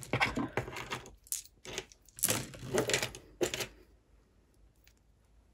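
Metal costume jewellery pieces clinking and knocking against each other and the tabletop as they are picked through in a loose pile: a quick run of sharp clicks and clinks over the first three and a half seconds.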